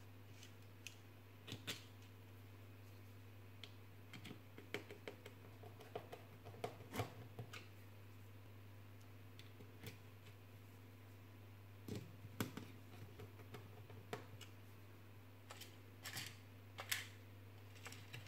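Small, scattered clicks and taps of fingers handling plastic parts and tiny screws while the relay module is fitted into a 3D-printed plastic case, with clusters about four to seven seconds in, around twelve to fourteen seconds, and again near the end. A faint steady low hum runs underneath.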